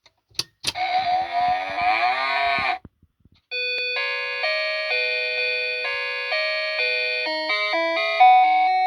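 Novelty cow alarm clock going off: two clicks, then a recorded cow moo of about two seconds. About three and a half seconds in, an electronic chime tune begins, note after note.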